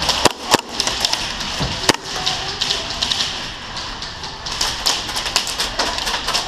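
Airsoft guns firing in a game: scattered sharp cracks, a few single shots in the first two seconds, then a quicker run of shots past the middle.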